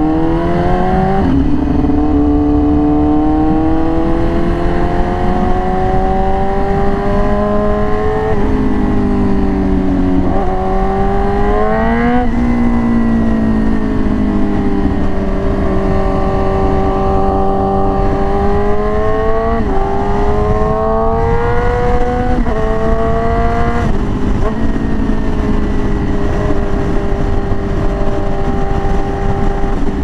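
Yamaha R6 inline-four with an SC Project aftermarket exhaust, under way. Its revs climb and drop sharply at gear changes several times, fall away as the throttle eases, then hold a steady note through the second half.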